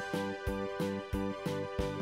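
Background music: a pitched keyboard-like tune over a steady beat of about three strikes a second.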